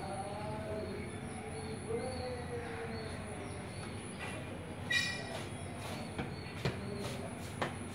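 Steady low rumble with faint gliding tones, a brief high squeal about five seconds in, and several sharp knocks after it.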